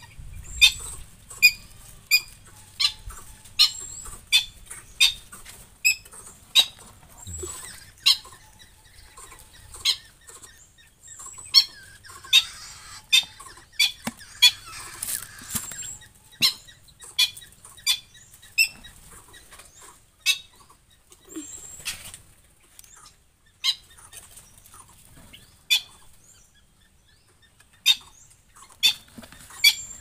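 Short, sharp bird calls repeated about once or twice a second, with a few pauses, from birds in an aviary. A brief stretch of rustling noise comes near the middle.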